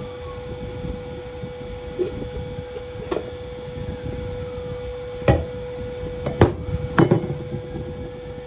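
Several sharp metal knocks and clanks, the loudest three between about five and seven seconds in, as a refrigerator compressor's steel shell and its cut-off cap are handled, over a steady background hum.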